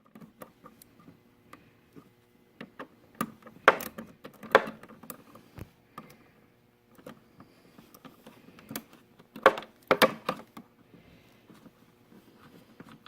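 Irregular clicks and knocks from a removed Harley-Davidson saddlebag latch handle and its small Torx bolt being handled. The loudest knocks come in clusters about four and ten seconds in.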